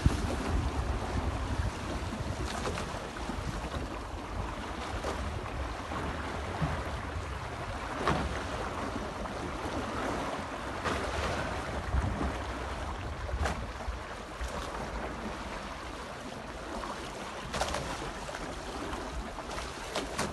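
Wind buffeting the microphone over the steady rush of water along the hull of a small trimaran under sail in light wind. Now and then a brief slap or knock stands out.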